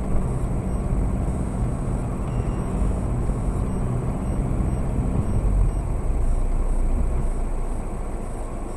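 Low, steady rumble of the car's own engine and tyres on the road, recorded by a dashboard camera inside the cabin, a little quieter near the end.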